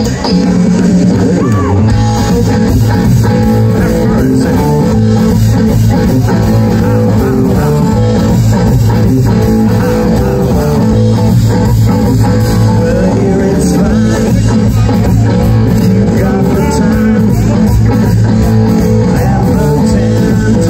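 Live rock band playing at full volume through a PA, with electric guitars, bass and drums driving a steady beat and a singer's voice over them.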